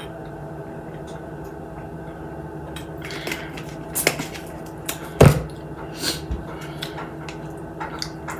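Close-up eating and food-handling sounds: irregular clicks, crackles and knocks from a meal of fried chicken and its container, starting about three seconds in, the loudest a single thump about five seconds in. A steady low hum runs underneath.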